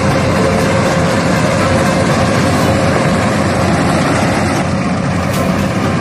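Rice combine harvester running steadily as it cuts standing rice: a dense, even mechanical noise with a constant hum.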